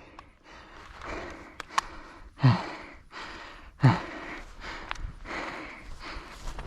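A person breathing hard and noisily, with two heavy voiced exhales about two and a half and four seconds in, each dropping in pitch. A few sharp clicks sound in between.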